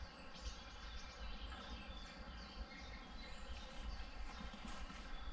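Birds chirping in short, quick calls, scattered throughout, over a low steady rumble.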